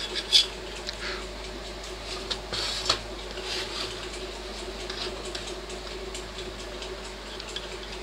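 Thin metal applicator scraping and tapping on a metal plate and on the steel housing of a microwave-oven magnetron while clear two-part epoxy is spread on it, with a few sharp clicks in the first three seconds and lighter scratching after. A steady low hum runs underneath.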